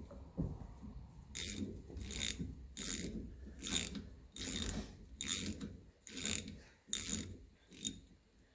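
Ratchet wrench worked back and forth, with about nine clicking strokes a little under a second apart.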